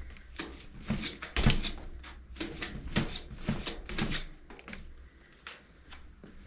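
RockShox Pike RCT3 suspension fork being pumped, its damper and air spring making a run of short noises, about two a second, loudest about one and a half seconds in and dying away near the end.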